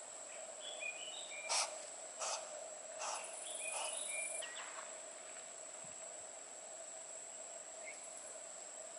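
Outdoor ambience: a steady, high-pitched insect drone over a lower steady hum, with short bird chirps in the first half and three short, sharp noises between about one and a half and three seconds in.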